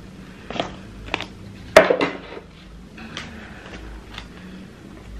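A cardboard iPhone box being opened on a wooden table: the lid is lifted off and set down, with a few knocks and light scrapes, the loudest a little under two seconds in.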